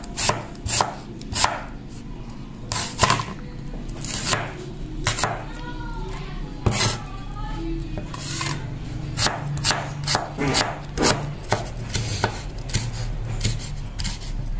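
Cleaver chopping on a wooden cutting board: sharp knife strikes against the board, irregular and roughly once a second, with a lull in the middle. The blade is slicing an onion, then a red bell pepper near the end.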